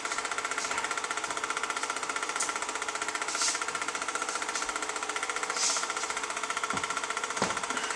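Film projector running: a steady, rapid mechanical clatter with a constant hum, and two brief hissy swells about three and a half and five and a half seconds in.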